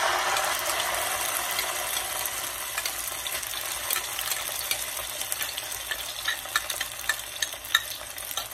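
Tomato paste and water sauce poured into hot oil in a frying pan with garlic, sizzling loudly the instant it lands and then easing into a steady sizzle with scattered crackles.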